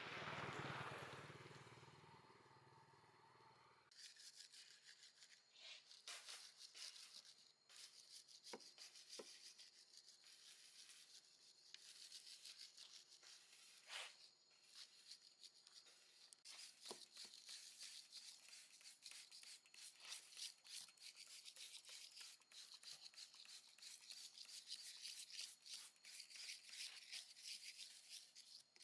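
Faint scratchy rubbing with scattered small clicks, starting about four seconds in after a brief soft swell.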